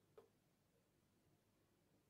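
Near silence, with one brief beep from a smartphone on speaker just after the start.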